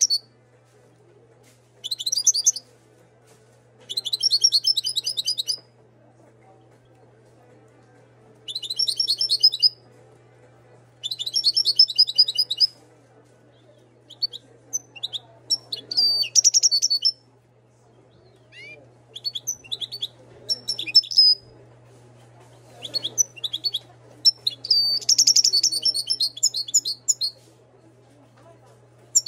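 Moroccan European goldfinch singing in a cage: about eight bursts of fast, high twittering and trilling song, each one to three seconds long, with short pauses between. A faint steady low hum lies beneath.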